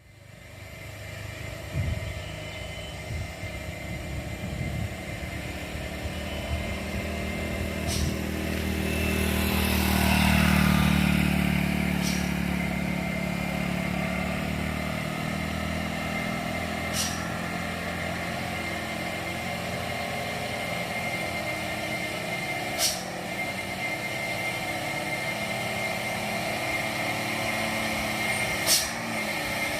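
Diesel truck engine labouring uphill, growing louder to its peak about ten seconds in and then running steadily. A few sharp clicks sound over it, spaced several seconds apart.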